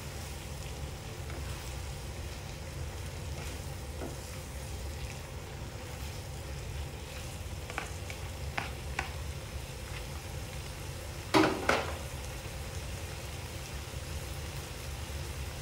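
Pork belly and kimchi sizzling in a nonstick frying pan over a gas burner as a plastic spatula stirs and scrapes through it, over a steady low rumble. A few light spatula scrapes come near the middle, and two louder knocks of the spatula against the pan about eleven seconds in.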